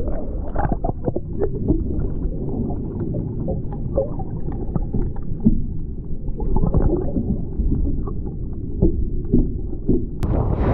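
Muffled underwater sound from a camera held below the surface: a low rumble of moving water with scattered small clicks and ticks.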